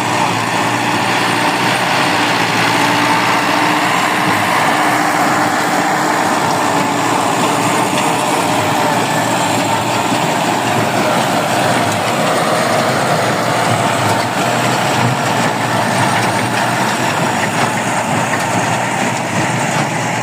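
Tractor engine running with a baler working behind it, a steady, even mechanical sound.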